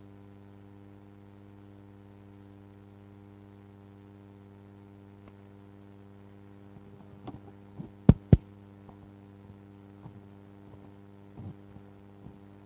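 Steady electrical mains hum from the sound system. From about seven seconds in come a few clicks and knocks, the loudest a pair of sharp pops about eight seconds in, as cables are handled and plugged in at the power board.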